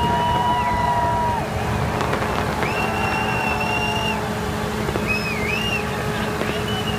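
A large fireworks display going off as a dense, continuous rumble of bursts with a few sharper cracks. Several long whistle tones, some wavering up and down, sound over it.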